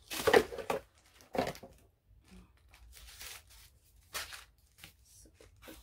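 Paper and cardboard packaging rustling and crinkling as it is handled, in a few short bursts, the loudest at the start.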